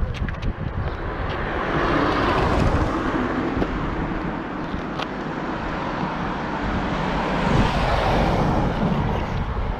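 Passing road traffic: a motor vehicle's engine and tyre noise swells and fades twice, with wind buffeting the microphone.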